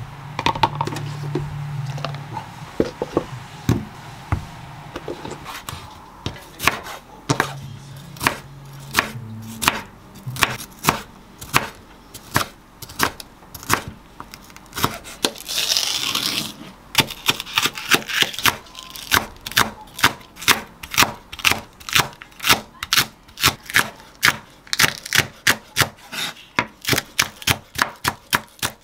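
Kitchen knife chopping red bell pepper and then green onion on a wooden cutting board: light handling at first, then sharp knocks of the blade on the wood that quicken to about four a second near the end. A short rustle about halfway through.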